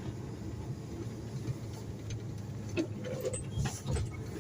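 Mercedes-Benz concrete pump truck running at driving speed, a steady low engine drone, with a few short rattles and knocks a little before the end as it goes over a rough road.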